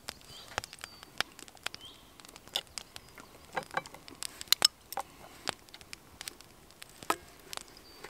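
A metal fork tapping and scraping against a frying pan as potato slices are lifted and turned: irregular light clicks, the loudest a pair a little past the middle.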